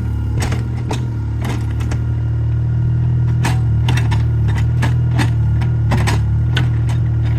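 Excavator engine running steadily, with irregular clanks and knocks from the working machine.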